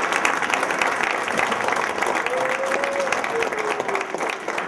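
Audience applauding steadily, a dense patter of many hands clapping. A voice is heard faintly over it from about halfway through.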